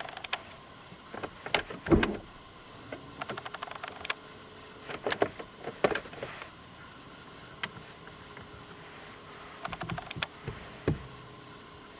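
Clicks, short rattles and a heavy thump about two seconds in, from handling inside the cabin of a parked VW Passat with its diesel engine not running. A cluster of clicks near ten seconds in comes as the ignition key is turned on ahead of the cold start.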